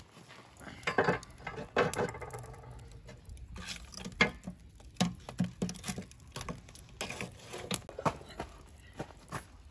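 Irregular knocks and clinks from wooden sticks being set across a steel charcoal grill and a metal poker stirring the charcoal.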